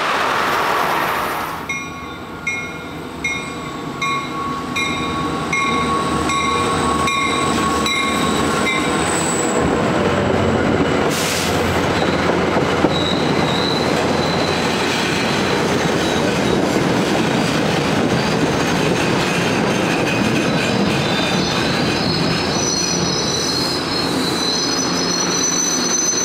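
A train passing close by, its steel wheels squealing high on the rails over a dense running noise. For the first several seconds a bell rings in a steady rhythm, about once every two-thirds of a second.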